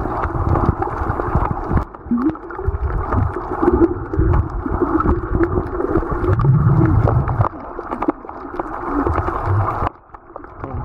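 Muffled water noise recorded underwater: sloshing and churning water with low swells and scattered sharp clicks. The sound drops away sharply near the end.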